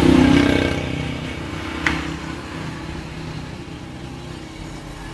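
A motor vehicle engine running, loudest at the start and fading over the first second or so to a steady hum, with a single sharp click about two seconds in.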